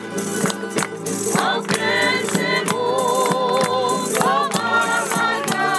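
Folk music: singing with vibrato over instrumental accompaniment and a steady beat of shaken percussion. The voice comes to the fore about a second and a half in.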